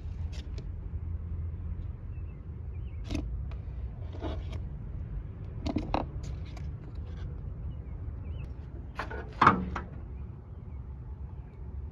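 Several short knocks and clatters over a steady low hum, the loudest a sharp thump about nine and a half seconds in.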